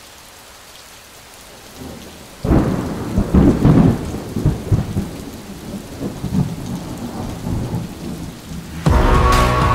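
Rain hissing steadily, then a loud thunderclap about two and a half seconds in that rolls on as an uneven rumble and slowly fades. Music begins near the end.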